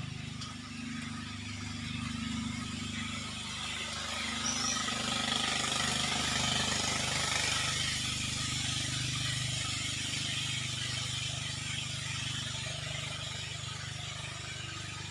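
A steady low engine hum runs throughout, with a high hiss that swells and fades again in the middle.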